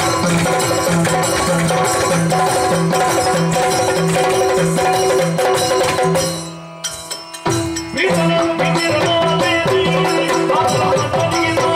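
Yakshagana ensemble music for a dance: chende and maddale drums play a quick repeating rhythm over a steady drone. The music drops away briefly about six seconds in and comes back in about a second and a half later.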